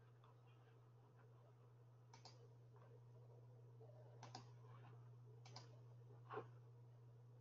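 Faint computer mouse clicks, some in quick pairs, spaced a second or two apart over a low steady hum; otherwise near silence.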